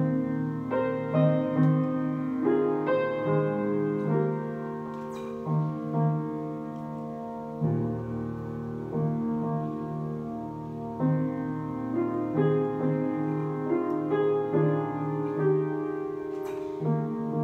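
Solo piano playing: a repeating low note pulses steadily under sustained, changing chords and a melody higher up.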